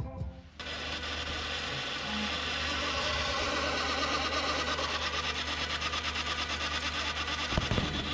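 Sony CFS-E22 radio-cassette player's tape mechanism winding at high speed, a steady mechanical whir with a fast even flutter over a low hum, with a few clicks from the deck near the end.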